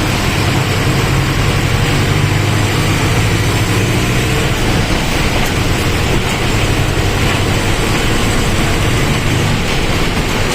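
Mercedes-Benz OF-1722M Euro III bus's diesel engine running steadily as the bus is driven, a low, even drone with road noise over it.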